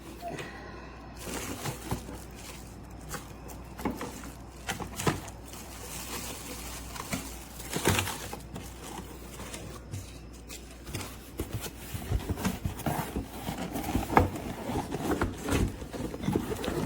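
Irregular knocks, scrapes and rustling of packaging being handled as a knife block is pulled out of its box, with a few louder knocks.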